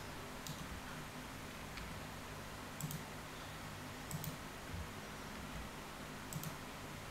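Computer mouse and keyboard clicks: a handful of sharp, separate clicks a second or two apart, over a faint steady hum.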